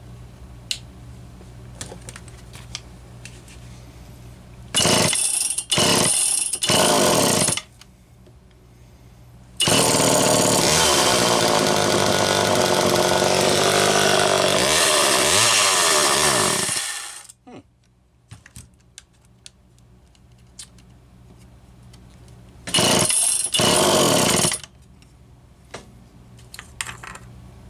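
A 1976 Homelite Super EZ Automatic 44cc two-stroke chainsaw engine fires in a few short bursts, then runs and revs for about seven seconds before it dies out. Near the end it fires in two more short bursts. The stalling comes with the tank low on fuel.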